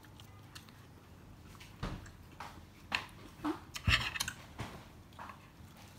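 Crisp iceberg lettuce leaves rustling and crinkling as they are pulled apart and handled with chopsticks, with scattered light clicks and two low knocks, the louder about four seconds in.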